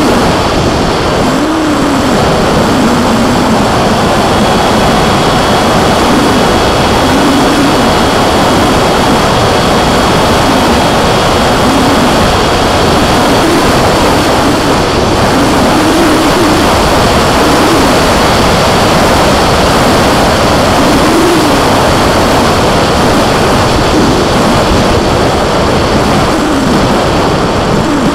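Onboard-camera audio from a Skyfun RC foam plane in flight. Heavy wind rushes over the microphone, and the plane's propeller and electric motor hum underneath, rising and falling in pitch every couple of seconds.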